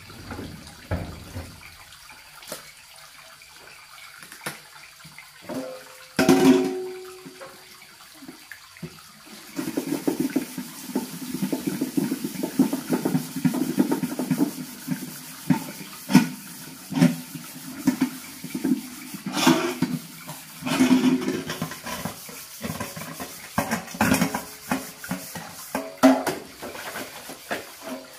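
Water splashing and sloshing with scattered knocks and clatter. One loud knock comes about six seconds in, and the splashing gets busier from about ten seconds in.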